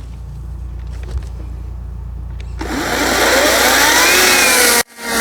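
Ryobi 40V cordless chainsaw starting up about halfway in: its electric motor and chain whine, rising in pitch and then sinking as the chain bites into a thick log. The sound cuts out for an instant near the end, then carries on.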